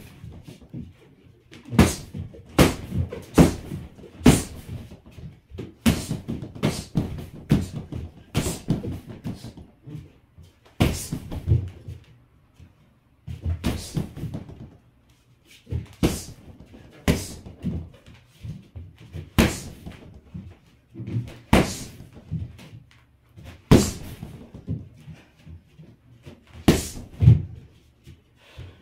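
Gloved punches and kicks landing on a free-standing heavy punching bag, coming in irregular flurries of two to four hits with short pauses between.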